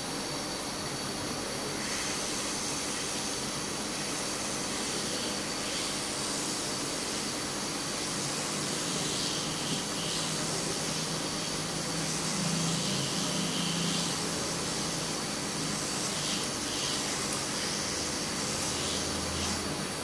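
Steady airy hiss of a running fan, unbroken and even in level, with no distinct clicks or knocks.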